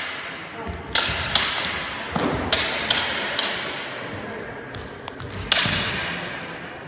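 Steel feder longswords clashing blade on blade about six times in a quick exchange, each strike a sharp metallic ring that echoes through a large sports hall.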